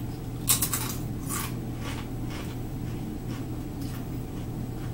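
Crunching bites into a Doritos tortilla chip. A few loud, crisp crunches come in the first second and a half, followed by softer chewing crunches about every half second.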